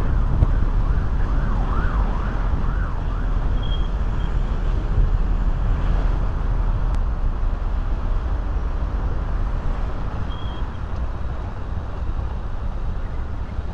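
City street traffic noise from cars passing and idling at an intersection. For the first few seconds a siren wails, rising and falling about twice a second.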